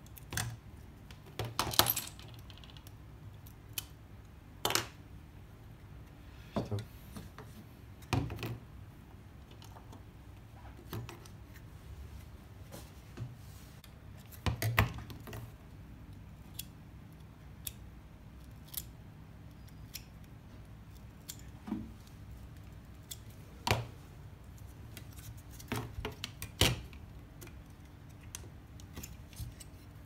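Spring-loaded desoldering pump snapping as it sucks molten solder off the pins of a relay on a microwave oven's control board: about half a dozen sharp clicks spread out, with smaller ticks and taps of tools on the board and bench in between.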